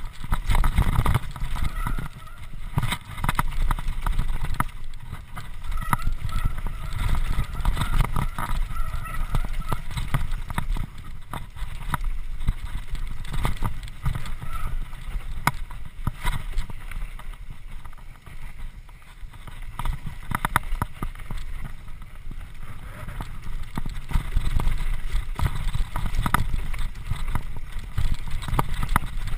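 Mountain bike riding fast down a rough dirt singletrack: a steady low rumble of wind and trail, with constant clicking and clattering as the bike rattles over bumps.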